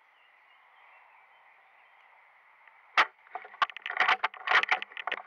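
A sharp crack about three seconds in, then irregular crackling and rustling of dry leaves and twigs on a forest floor as someone moves over it.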